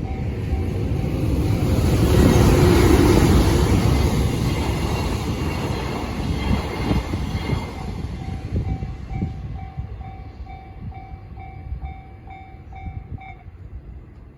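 Electronic level-crossing warning bell (the JR standard tone) dinging in a steady repeating pattern while a freight train passes. The train's rumble is loudest about two to four seconds in and then fades away. The bell stops shortly before the end.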